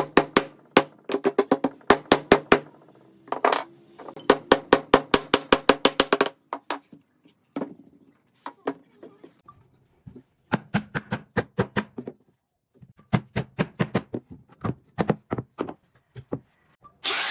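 Rapid bursts of sharp knocks, several a second, broken by short pauses, with a brief ringing note under some of them.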